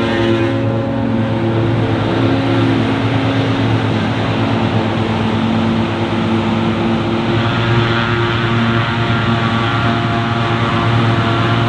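Heavy diesel engine of farm machinery running steadily, its tone shifting a little about seven seconds in.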